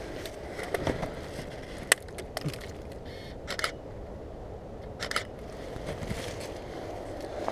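A DSLR's shutter firing several times, mostly as quick double clicks, with a single sharp click about two seconds in the loudest. A steady low rustle of handling and movement through dry undergrowth runs underneath.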